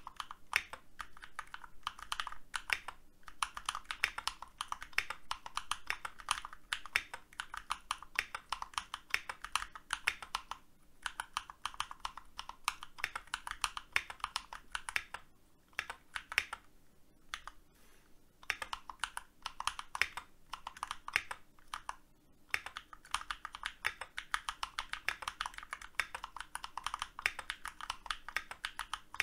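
Typing on a keyboard: fast runs of key clicks broken by short pauses.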